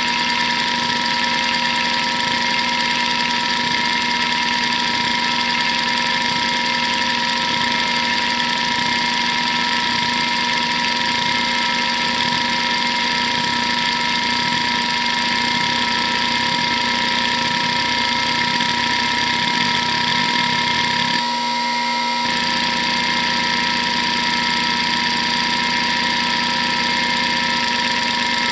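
Hitachi DK522C-10 hard drive running hdmotion: its spindle whines steadily while the head actuator seeks back and forth in a rapid, continuous chatter. About 21 seconds in the seeking rhythm changes as the program moves to a new seek pattern.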